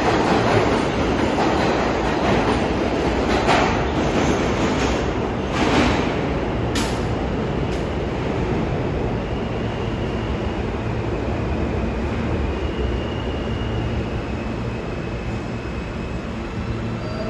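New York City Subway train running through an underground station, its rumble loud at first and gradually easing. There are a few sharp wheel clacks in the first several seconds and a faint high wheel squeal later.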